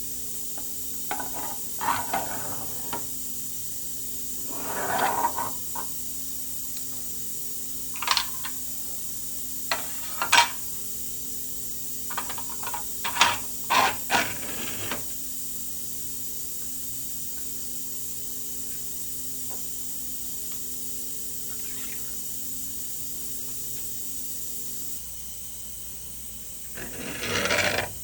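Scattered knocks, clicks and scraping of objects being handled, over a steady low hum that stops near the end; a longer louder rubbing sound comes just before the end.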